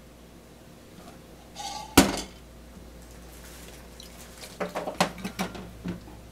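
Metal cooking pot with a metal spoon in it clanking as it is moved and set down: one loud clank about two seconds in, then a quick run of lighter knocks and clinks near the end.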